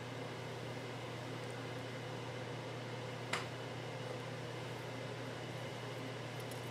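Steady low hum and faint hiss of room tone, like a fan or air conditioner running, with a single sharp click a little over three seconds in.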